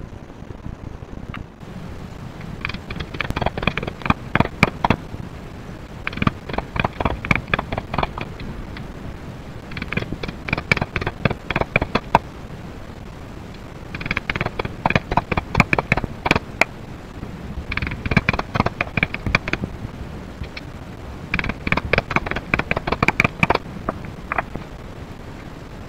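A mallet striking a steel dapping punch to dome sterling silver flower blanks in a steel dapping block: six bursts of quick metallic taps, each about two seconds long, with short pauses between.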